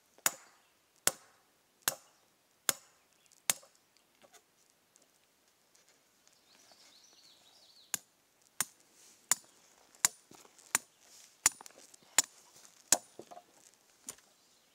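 A hammer striking a steel rebar stake to drive it into the ground. There are five sharp blows about a second apart, a pause of a few seconds, then eight more blows a little faster.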